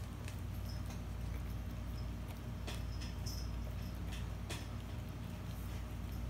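A puppy mouthing and pawing at bread on a tiled floor: scattered small clicks, ticks and scratches of teeth and claws, a few a little sharper around the middle, over a steady low hum.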